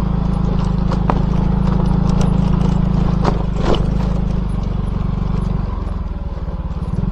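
Motorcycle engine running while riding, with a few knocks from the road. Near the end the engine note drops and turns into a slower pulsing beat as the bike eases off.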